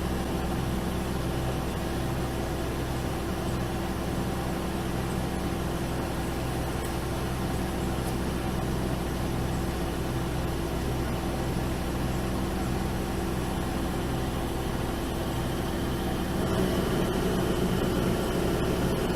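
Heavy machine's diesel engine running steadily. It grows a little louder near the end, where a thin high whine joins it.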